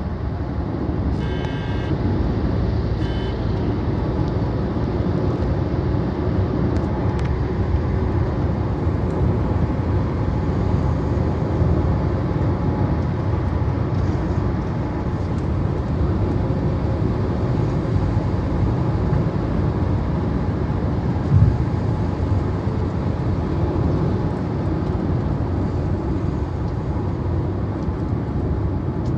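Steady road and engine noise inside a moving car's cabin, with two short high beeps about one and three seconds in and a single thump about twenty-one seconds in.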